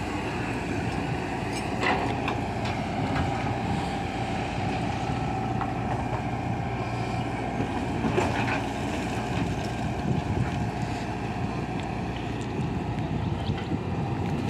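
Tata Hitachi 120 excavator's diesel engine running steadily with a steady whine while the machine digs and swings a loaded bucket. A few sharp knocks and scrapes stand out about two seconds in and again about eight seconds in.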